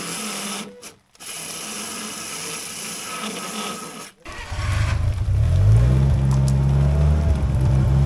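A cordless drill whirs as it drills out the rivets holding a snowmobile's rear bumper. It runs in two stretches with a short pause about a second in and stops after about four seconds. A skid-steer loader's engine then starts and runs louder, revving up and holding.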